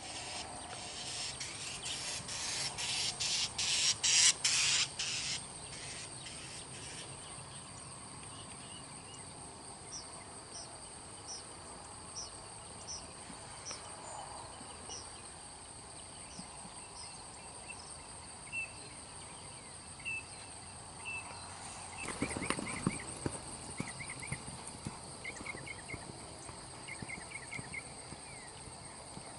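Insects buzzing steadily at a high pitch, with birds giving short repeated chirps. A run of loud, sharp clicks comes in the first few seconds, and a brief louder rustling noise about three quarters of the way through.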